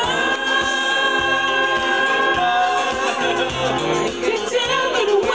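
Music: a choir singing long held chords over a bass line with a steady beat.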